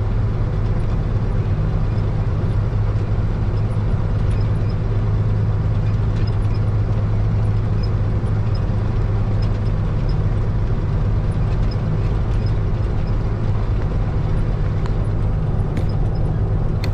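Heavy truck's diesel engine running at a steady speed, a constant low drone with no change in pitch.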